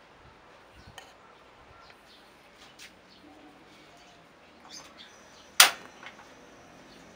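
Scattered bird chirps in the background, then a single sharp snap about five and a half seconds in, by far the loudest sound, as the gas stove burner is lit.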